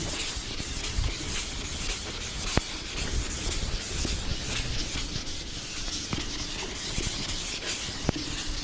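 Chalkboard duster wiping chalk off a board in repeated rubbing strokes, with a few sharp clicks scattered through.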